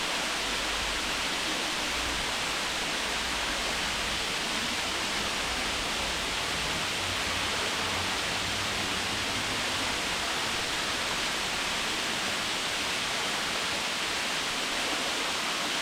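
Waterfall's falling water rushing in a steady, unbroken hiss.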